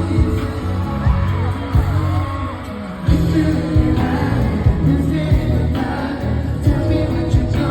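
Live band playing a pop-rock song loudly, with drums, bass and a singing voice. The band drops back briefly, then kicks back in fully about three seconds in.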